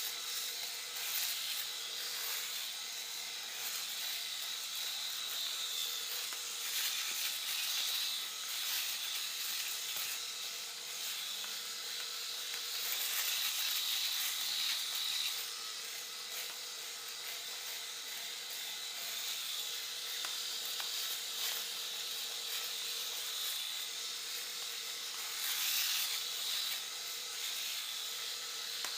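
Cordless electric razor running steadily with a high whine while shaving facial stubble. Its rasping hiss swells louder several times.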